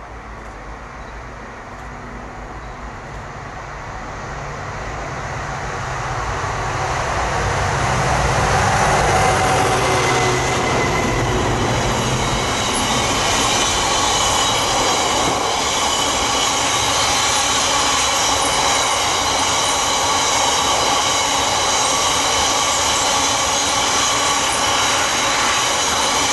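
A diesel freight locomotive approaches and passes, its engine growing louder to a peak about nine seconds in. A long rake of hopper wagons follows, rolling by with steady wheel-on-rail rumble and high, thin ringing from the wheels.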